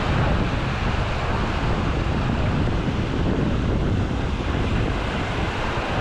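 Small waves breaking and washing up the sand at the shoreline in a steady surf, with wind buffeting the microphone.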